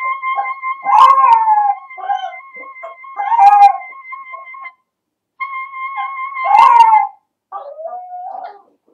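A clarinet holding one long steady note, cut off briefly about halfway and then taken up again, while a small dog howls along with it. Three loud rising-and-falling howls, about a second, three and a half and nearly seven seconds in, are the loudest sounds, and a lower, shorter howl follows near the end.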